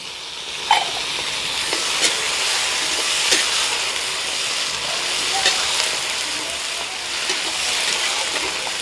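Onions, tomatoes and capsicum sizzling in hot oil in a kadhai, with a steady frying hiss. A stirring spoon clicks and scrapes against the pan now and then.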